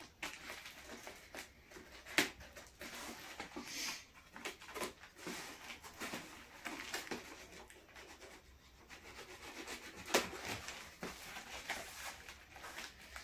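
Cardboard shipping box being slit open with a knife and its flaps pulled apart: irregular scraping and rubbing of blade and fingers on packing tape and cardboard, with a few sharp clicks, the loudest about two seconds in and about ten seconds in.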